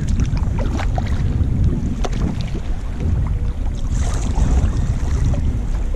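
Wind buffeting the microphone of a camera on a kayak, a steady low rumble, with water sloshing and splashing against the kayak and paddle. There is a brief louder splash about four seconds in.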